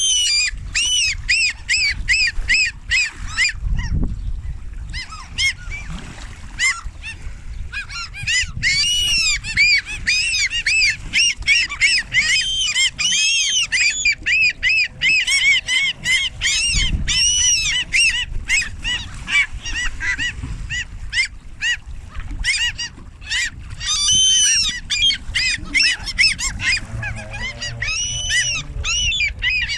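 A flock of birds being fed, calling without pause: many short, high, arched calls overlapping one another, with a low rumble of wind underneath.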